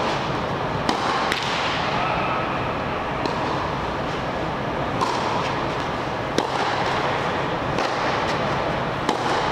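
Tennis ball struck back and forth with rackets in a baseline warm-up rally: sharp pops about every second and a half, alternating louder and fainter hits, over a steady background hiss.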